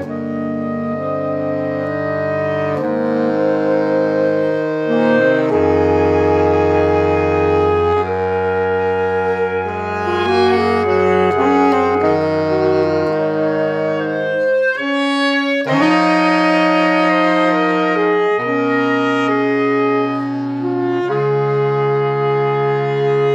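Saxophone quartet playing slow, sustained four-part chords that swell from soft to loud a few seconds in. The chords break off briefly about fifteen seconds in, then carry on.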